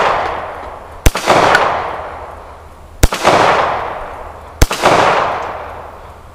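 Three shots from a Stallard Arms JS9 9mm pistol firing brass-cased full metal jacket rounds, about one and a half to two seconds apart. Each shot is followed by a long echo that fades away, and the pistol cycles each round without a malfunction.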